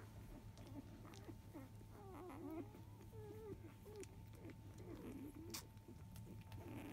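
Faint squeaks and whimpers of five-day-old Labrador retriever puppies nursing at their mother, a cluster of short wavering calls through the middle.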